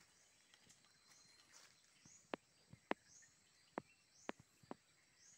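Near silence, broken by a few sharp, separate clicks and snaps of twigs and leaf litter as someone moves over the forest floor. A faint high chirp repeats about twice a second behind them.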